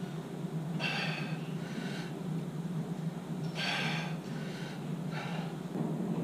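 A man breathing hard from exertion during a weightlifting set: about four heavy breaths, some paired in and out, over a steady low hum.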